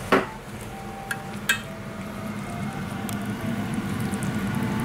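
A thick homemade white sauce being stirred in a pan, with a sharp clack of a utensil against the pan just after the start and another about a second and a half in.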